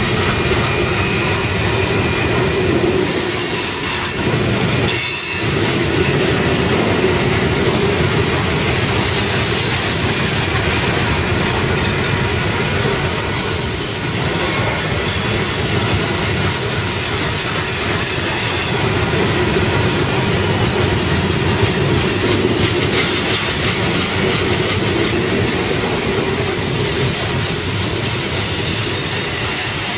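Coal hopper cars of a Union Pacific freight train rolling past, a loud steady rumble of steel wheels on rail with a thin high wheel squeal running over it. The sound briefly dips about five seconds in.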